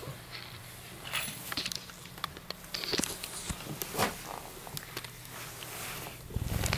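A house cat close up to floor-level cameras: soft knocks, rustles and bumps as it walks up, sniffs and rubs against the lens, with a sharper knock about four seconds in and a low thump near the end.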